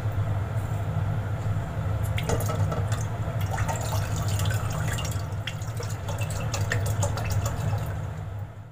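Chicken stock poured from a carton into a saucepan, liquid splashing and trickling, with scattered clicks and taps over a steady low hum. The sound fades out near the end.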